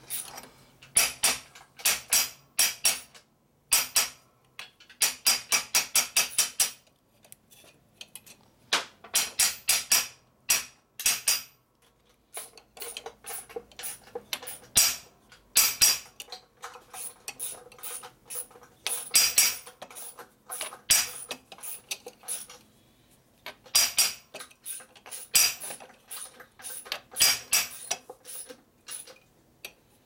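Ball-peen hammer striking an aluminum block laid over a round metal part, in quick runs of sharp, ringing metallic blows with short pauses between them. The part is turned between blows to flatten its dented edge back round.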